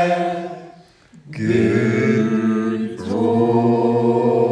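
A group of people singing together without accompaniment, holding long notes, with a short break about a second in before the singing resumes.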